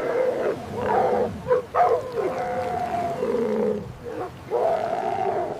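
Sea lion barking: a run of repeated calls, each under a second to about a second long.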